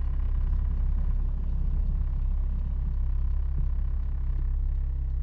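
Steady low drone of a car's idling engine, heard from inside the cabin.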